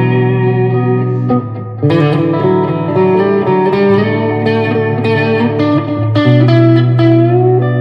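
Squier Classic Vibe 70s Jaguar electric guitar playing single-note lines over a held low note, with a short drop in loudness about a second and a half in.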